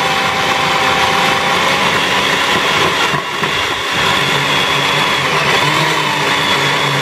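Ronson food processor's motor running at full speed with a steady whine, its blade pureeing soft boiled pumpkin.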